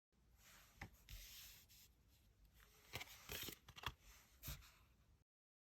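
Tarot cards being handled: a faint papery rustle with several sharp snaps of cards, the loudest ones about three and four and a half seconds in.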